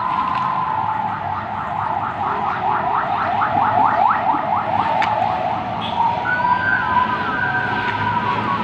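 Electronic alarm or siren cycling through its patterns: a steady tone, then a fast chirping sweep repeated several times a second for a few seconds, then steady tones again.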